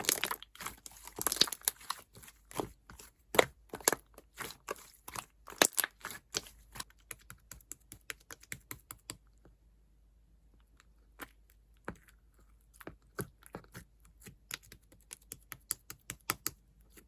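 White Elmer's-glue slime being squished and poked by hand, giving rapid crackling clicks and pops. The clicks come thick and fast for about nine seconds, pause for a second or two, then return sparser.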